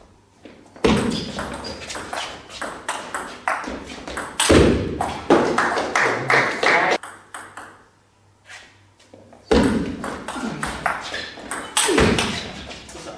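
Table tennis rallies: the plastic ball clicking rapidly and irregularly off rackets and the table. Two runs of hits, with a pause of about two seconds between them.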